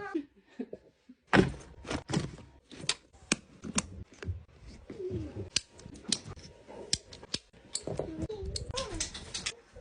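Irregular clicking and clattering knocks of hard objects being handled, loudest about a second in, with a dog whining in short rising-and-falling cries near the middle and again toward the end.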